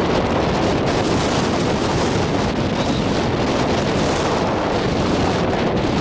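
Wind buffeting the camera microphone: a loud, steady rushing rumble, heaviest in the low end.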